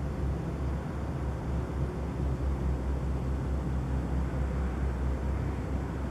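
Steady low droning hum of unidentified origin, the 'strange noise' heard at night, wavering slightly in level without pause.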